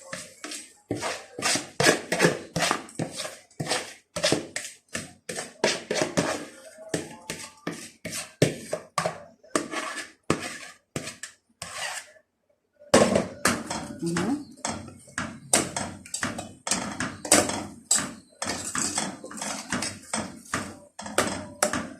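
A spoon knocking and scraping against a cooking pot, a few irregular knocks a second, as tomato sauce is stirred into garlic fried in oil. A person's voice is heard in the background. The sound drops out briefly about halfway through.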